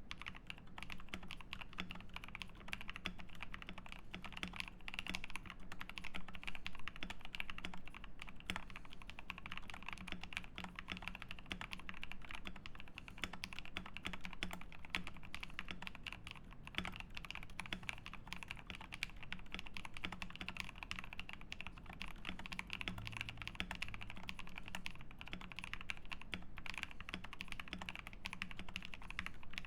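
Continuous fast typing on a KBD67 Lite R3 mechanical keyboard with lubed NK Cream linear switches, a polycarbonate plate, foam dampening and PBT keycaps. The key presses are dense and steady.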